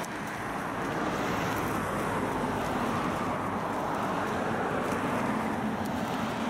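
Cars passing at highway speed, a steady rush of tyre and road noise.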